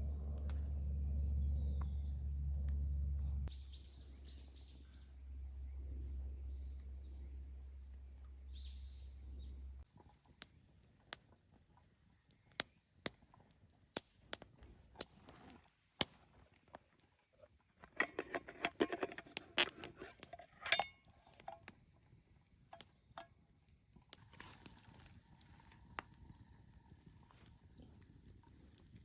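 Insects, likely crickets, trilling in one steady high note. A low rumble fades out about a third of the way in, and scattered clicks and knocks follow, thickest about two-thirds through.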